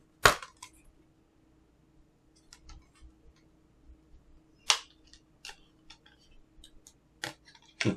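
Plastic Blu-ray case being handled: a few sharp clicks and snaps, the loudest just after the start and midway, a couple more near the end, with faint ticks between.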